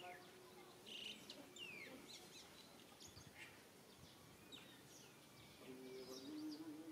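Faint outdoor ambience with scattered short, high chirps that fall in pitch. A few faint low tones come in near the end.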